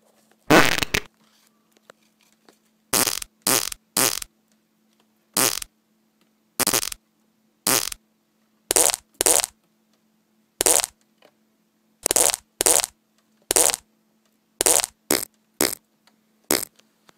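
A string of fart sound effects, about seventeen short blasts at irregular intervals with gaps of near silence between them. The first, about half a second in, is the longest and loudest.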